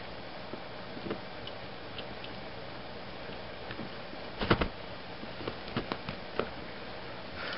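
A few soft clicks and taps as a kitten paws and pounces on a strand of beaded crochet thread on a sofa, loudest about halfway through, over a steady faint hiss.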